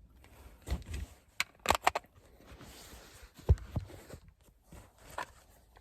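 Handling noise from a car's plastic interior light and its cover being lined up to be clipped back in: a scatter of short clicks and taps, with one louder knock about halfway through.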